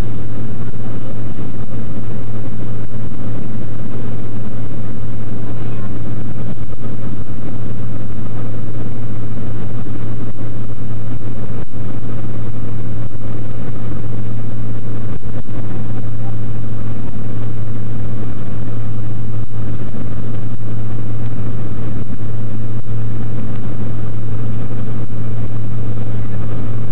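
Light aircraft's engine and propeller drone heard from inside the cabin in flight: a loud, steady low hum with an even rushing noise over it, unchanging throughout.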